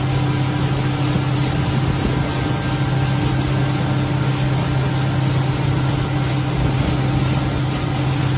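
Crab boat's engine running at a steady pitch while underway, heard inside the wheelhouse as a constant low drone.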